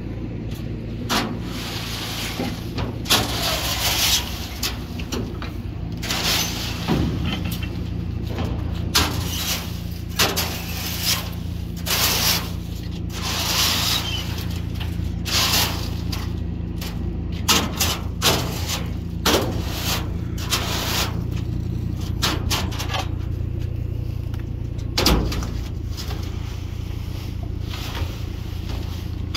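Steady drone of the CAT backhoe loader's diesel engine idling, under repeated irregular scrapes and knocks of a metal rake and pitchfork dragged across the steel floor of a dump trailer as wet leaves are pushed out.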